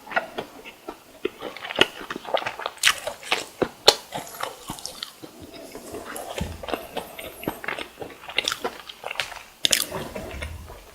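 Close-miked eating of crisp deep-fried food: bites and chewing with many sharp crackling crunches, and a couple of soft low thuds.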